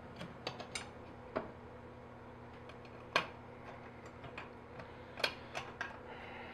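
Scattered light clicks and taps of small metal parts being handled against an aluminium frame, as a screw or nut is fitted by hand, with two louder clicks about three and five seconds in. A faint steady hum runs underneath.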